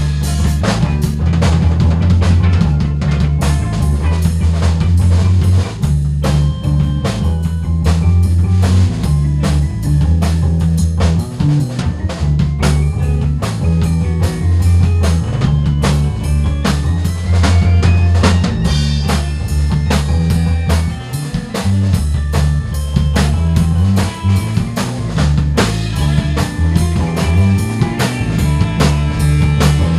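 Instrumental band music: a drum kit keeps up busy strokes over a prominent electric bass line, with electric keyboard and guitar parts above.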